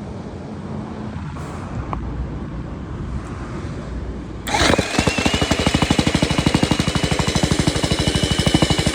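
MIKASA MTX-M55 electric tamping rammer switched on about halfway through: its motor whine rises and settles, and its foot starts pounding steadily at about ten blows a second. Before it starts there is only a low rumble.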